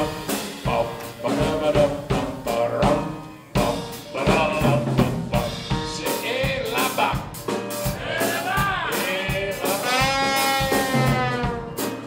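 Live New Orleans rhythm-and-blues: piano with a drum kit keeping a steady beat in an instrumental break, and a long held note about ten seconds in.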